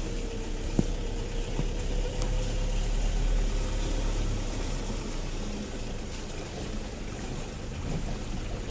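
Toyota Hilux's 2.5-litre D-4D turbodiesel running steadily at low throttle, heard from inside the cab, with water washing around the truck as it wades slowly through a pool.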